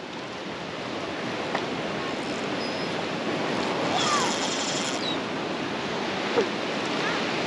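Steady wash of ocean surf and wind, with a brief high-pitched sound lasting about a second, about four seconds in.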